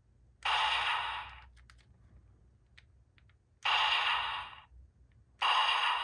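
Magnum Shooter 40X toy blaster in handgun mode playing its basic electronic firing sound each time the trigger is pulled: three shots, each about a second long, starting suddenly and fading away, with faint clicks between them.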